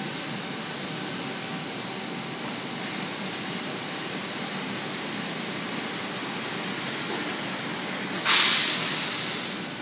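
Automated guided vehicle moving a rack of tile stacks through a tile factory: steady machine noise, with a high steady whine that starts about a quarter of the way in. A loud burst of hissing comes near the end and fades over about a second and a half.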